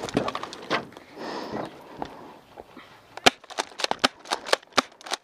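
Paintball markers fired at close range: a quick string of sharp pops, about five a second, through the second half, after some rustling and scattered clicks near the start.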